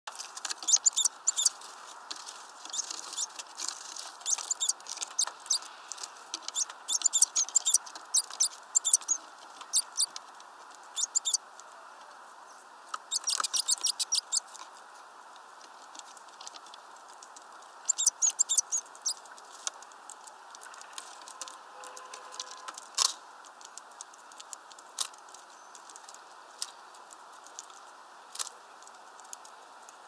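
Great tits and blue tits pecking at a fat ball in a wire spiral feeder: runs of quick, sharp taps, several a second, lasting a second or two with pauses between. Single clicks follow in the later part.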